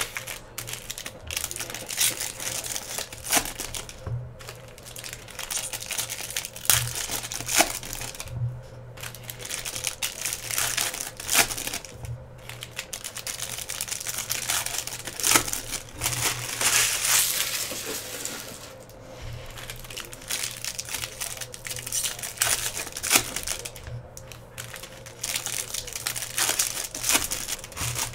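Foil wrappers of Bowman Draft Jumbo baseball card packs being torn open and crinkled by hand: an irregular run of rustling crinkles with scattered sharp clicks.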